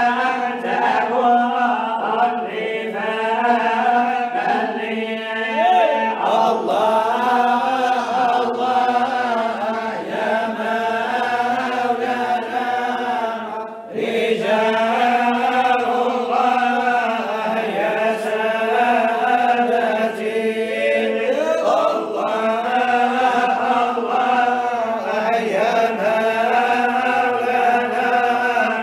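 Unaccompanied Sufi samaa chanting by male voices: a lead voice sings a winding melodic line over a steady held drone note, with one short pause near the middle.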